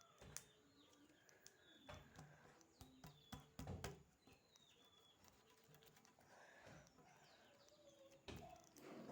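Faint squishing and clicking of soft homemade slime being handled, the loudest clicks about three and a half seconds in, with faint bird chirps in the background.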